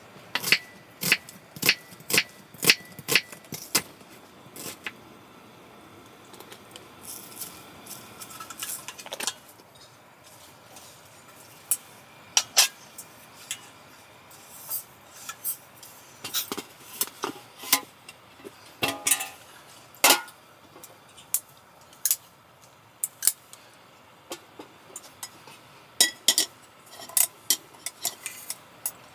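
Metal cookware and utensils clinking and knocking: sharp, irregular clinks, some with a brief ring, in a quick run over the first few seconds and then scattered.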